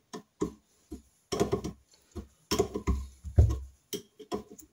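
A spanner clicking and knocking against the banjo bolts and fuel-pipe fittings of Amal Concentric carburettors as the bolts are tightened: a string of short, irregular metal clinks, the loudest about three and a half seconds in.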